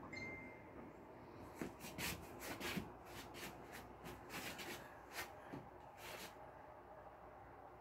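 Faint scratchy rustling as artificial Christmas-tree branches and plastic tinsel garland brush against the phone, a quick run of about a dozen short crackles from a second and a half in until about six seconds in.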